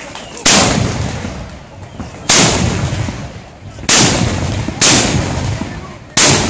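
Mascoli, small iron gunpowder mortars set in a row on the ground, firing one after another. There are five loud single bangs about one to two seconds apart, each trailing off in a short echo.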